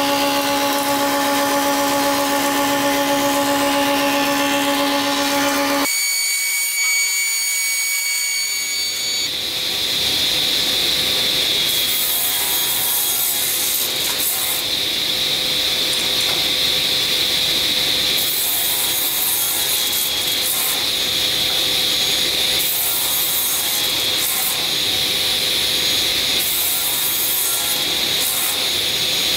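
Sliding table saw cutting a glued-up blank of ash and thermally treated ash: a continuous hissing cut with brief brighter surges every few seconds. Before that, a thickness planer's steady hum stops abruptly about six seconds in, followed by a short quieter gap.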